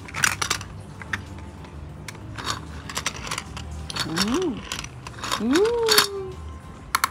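Plastic clicks and clacks of a toy car-track playset as a child works its levers and buttons, sending a small toy car along the course. A couple of short rising-and-falling vocal sounds from the child come past the middle.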